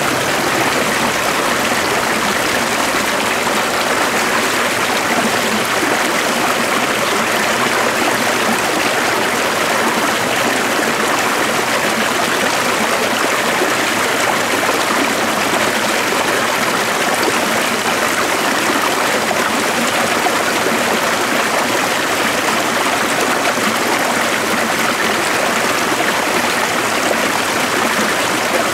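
Stream water running steadily, an even rushing and trickling with no breaks.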